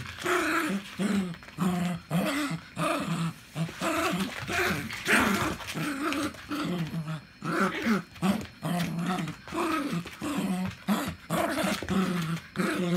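Small mixed-breed dog play-growling while it bites and tugs at a bare foot: a continuous string of short growls, about two a second. It is rough play, not aggression.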